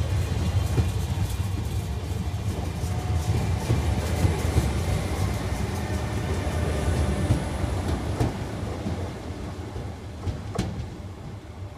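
A Z2N double-deck electric multiple unit passes close by. Its wheels rumble steadily on the rails, with rapid clicking over the rail joints. The sound fades after about eight seconds as the last carriages go by.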